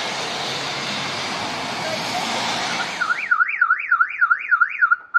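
Steady hiss of rain for about three seconds, then a Nissan sedan's car alarm siren warbling up and down about three times a second for some two seconds, ending on a short steady tone.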